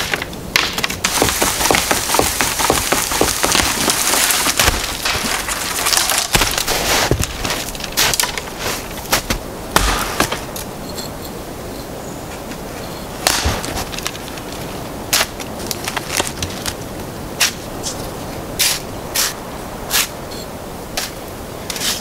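Dry dead wood being broken off a fallen tree by hand, cracking and snapping. For about the first ten seconds it is dense crunching and crackling, after which the snaps come singly every second or so.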